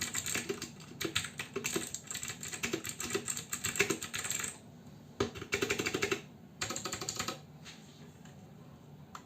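Royal Kludge RK71 mechanical keyboard with clicky blue switches being typed on quickly, a dense run of keystrokes. About halfway through the typing breaks into two short bursts, then stops.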